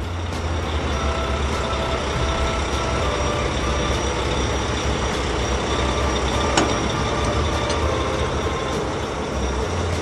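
Dump truck engine sound effect running with a steady low rumble under a rushing noise. Faint short tones at changing pitches come and go above it.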